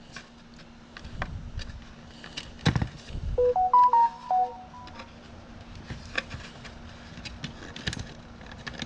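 A short electronic jingle of several beeps at different pitches, lasting about a second, a little over three seconds in. Scattered clicks and knocks of connectors and wires being handled are heard around it.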